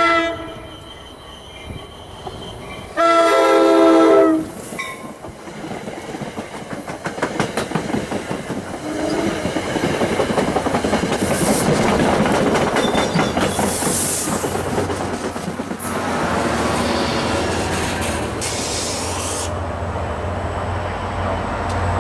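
NJ Transit commuter train sounding its horn, a short toot and then a longer blast about three seconds in, as it approaches. The train then passes close by, a rumble with the clickety-clack of wheels over rail joints that grows and is loudest about halfway through.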